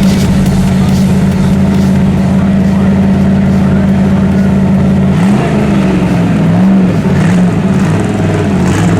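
A car engine holding a steady speed, then revved up and down several times from about five seconds in.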